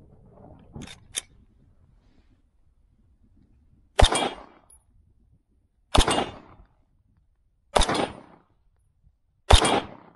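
Four single gunshots fired one at a time, about two seconds apart, each with a short echoing tail. Two light clicks come first, about a second in.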